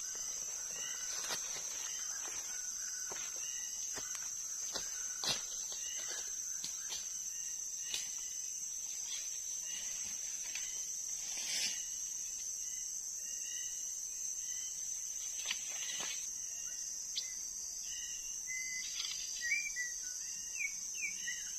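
Steady high-pitched drone of crickets, with short bird chirps and light clicks scattered through it. Near the end comes a quick run of whistled bird notes sliding up and down.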